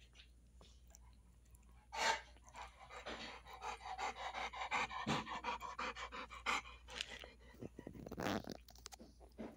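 Large mastiff-type dog panting rapidly close to the microphone. The panting starts about two seconds in, runs as a quick steady rhythm, and ends with a short louder burst near the end.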